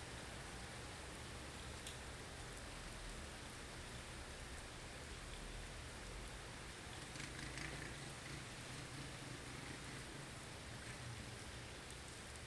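Blizzard ambience: a steady hiss of wind-blown snow over a low, wavering rumble of wind, with a couple of faint ticks.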